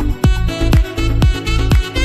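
Background electronic dance music with a steady kick drum beat about twice a second over sustained synth tones.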